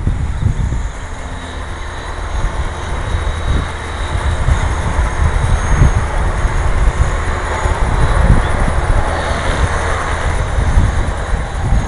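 Wind buffeting the microphone in a gusty rumble, with the faint high whine of a radio-controlled model airplane flying overhead.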